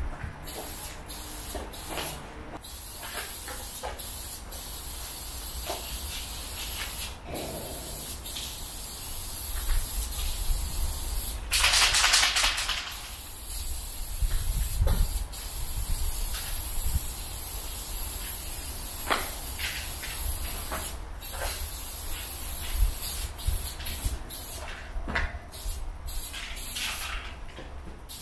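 Aerosol spray paint can hissing as red paint is sprayed in strokes, with short breaks between them and one louder, fuller hiss about twelve seconds in.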